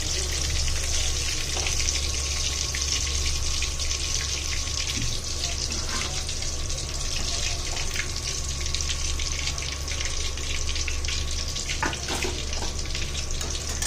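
Chicken pieces frying in hot oil: a steady sizzle with a scatter of small crackles and pops.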